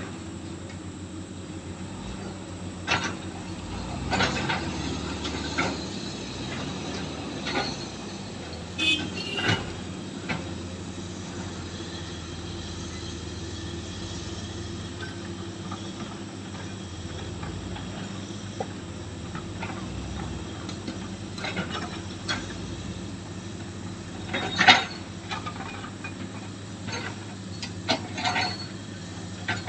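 Excavator's diesel engine running steadily while it loads broken rock, with scattered sharp knocks and clanks of the bucket and rock. The loudest knock comes about three-quarters of the way through.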